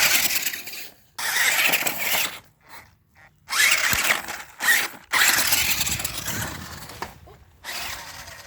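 Monster Jam Megalodon Storm remote-control monster truck's electric motor whirring in several bursts, starting and stopping sharply as the throttle is pressed and released.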